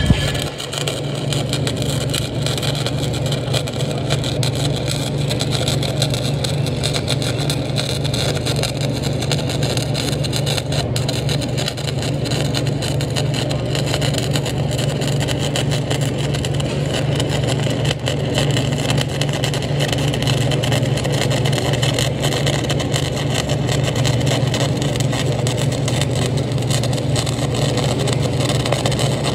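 Stick welding arc crackling steadily, a continuous frying sound from the electrode burning, over a steady low hum.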